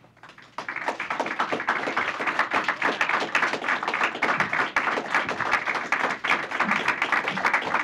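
Audience applauding, a dense patter of many hands clapping that starts about half a second in and keeps going at an even level.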